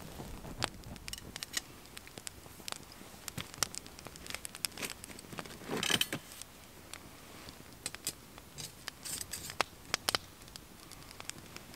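Wood fire crackling in a small steel twig stove, with irregular sharp pops and snaps, and one brief louder noise about halfway through.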